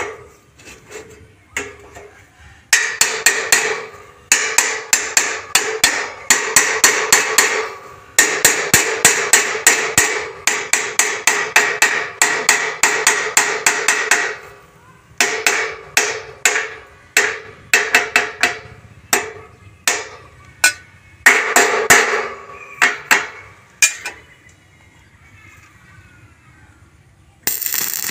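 Hammer striking steel tubing in fast runs of blows, about four or five a second, with short pauses between runs. The blows stop about four seconds before the end.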